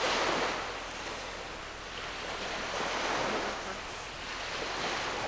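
Waves washing onto a beach, the surf rising and falling in a few swells.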